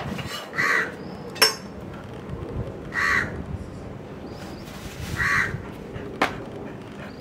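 A crow cawing three times, about two seconds apart, with two sharp clicks, the louder one about a second and a half in.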